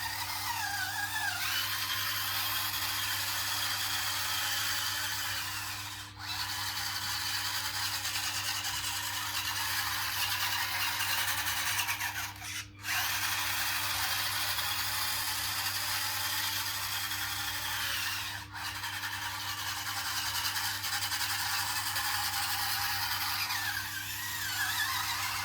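Small electric drive motors and plastic gearboxes of a 1/16-scale RC bulldozer whining steadily as it runs. The pitch rises about a second and a half in and drops near the end, and the motor cuts out briefly three times.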